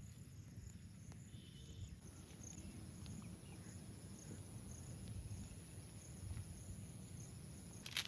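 Quiet outdoor ambience: a steady, high insect drone starting about two seconds in, with faint chirps over a low rumble, and a few sharp clicks at the very end.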